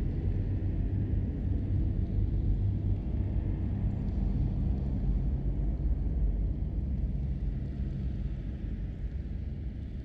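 Cave atmosphere: a steady low rumble, with no separate drips standing out.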